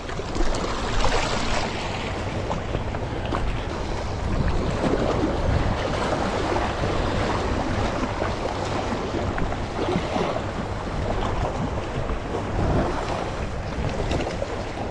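Small harbour waves washing over and splashing against sandstone rock ledges, with wind rumbling on the microphone.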